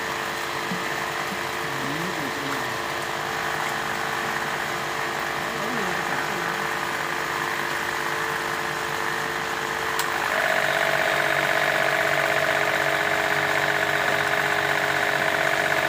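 A machine's motor running steadily with a steady hum; about ten seconds in it gets louder, with a rough buzzing added.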